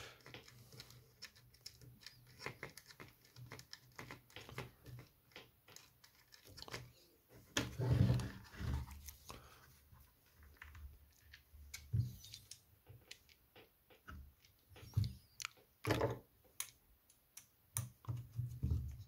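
Hands handling and fitting parts on a small plastic cordless mini chainsaw: a run of small plastic clicks and taps, with a few louder knocks.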